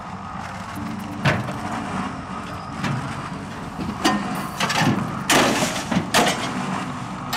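Mobile hollow concrete block machine running with a steady rumble. Sharp clanks and scrapes come about 1.3, 2.9 and 4 s in, a dense cluster of them in the middle, and another near the end.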